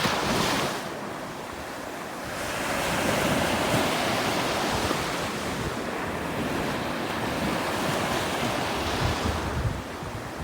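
Ocean waves breaking and washing up the shore, the surf swelling and easing in slow surges, with wind buffeting the microphone.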